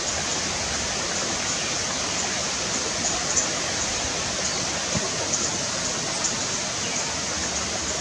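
A steady rushing hiss of outdoor ambience, with a few faint, short, high chirps now and then.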